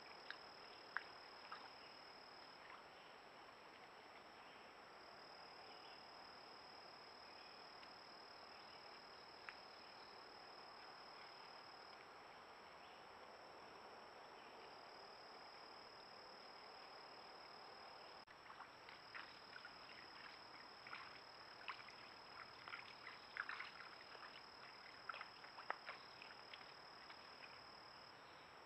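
Insects trilling in a steady high, even tone that breaks off briefly now and then. About two-thirds of the way in, light clicks and rustles join, as of something moving through leaves.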